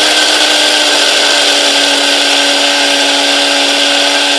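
SHARDOR electric coffee grinder running at full speed, grinding coffee beans: a steady motor whine over a loud rushing hiss.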